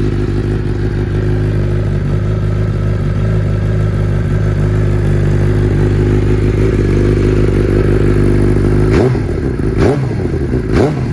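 2014 Suzuki GSX-R1000's inline-four engine idling steadily through an aftermarket Yoshimura carbon silencer, a bit loud, then revved with three quick throttle blips about a second apart near the end.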